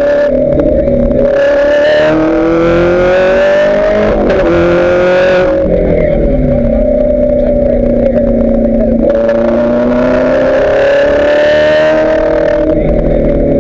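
Ferrari F430 GT race car's V8 engine heard from inside the cockpit, pulling hard with its pitch climbing, with an upshift about four seconds in. Around five and a half seconds it comes off the throttle for braking and the sound loses its edge. It goes back on the throttle at about nine seconds and lifts again near the end.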